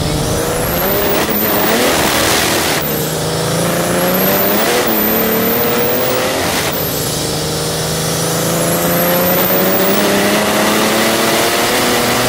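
Mercedes OM606 turbo-diesel straight-six in a BMW E28 accelerating hard. The engine's pitch climbs, breaks off and drops back several times, then makes one long climb. A high turbo whistle rises over it in three spells.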